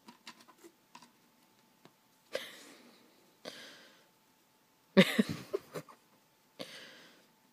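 Stifled laughter from a person: four short breathy bursts, the loudest about five seconds in with a brief voiced snort.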